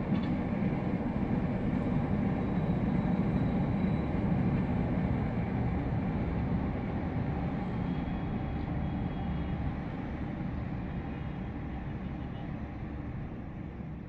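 Low rumble of Metro Manila street traffic, swelling over the first few seconds as a heavy vehicle passes and then slowly fading.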